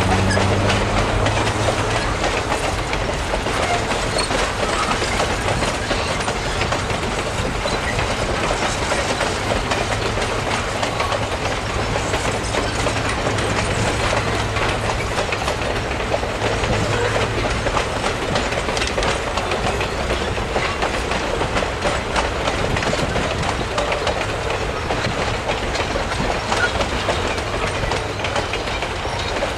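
Passenger coaches rolling steadily past, their steel wheels clicking and rumbling over the rail joints. A low steady hum stops about eighteen seconds in.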